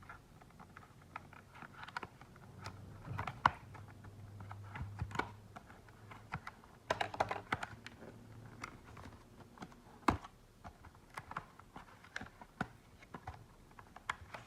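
Irregular clicks, taps and light rattles of small plastic and metal parts being handled as a laptop SSD is fitted into the drive bay, with two sharper knocks about three and ten seconds in.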